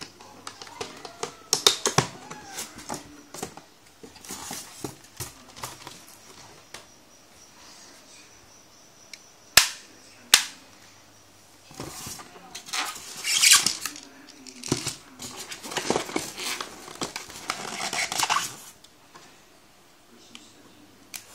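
Handling noises from unpacking a plastic airsoft M4 rifle and its accessories: scattered clicks and knocks of plastic parts, two sharp clicks about halfway through, then a stretch of scraping and rustling against polystyrene foam packing.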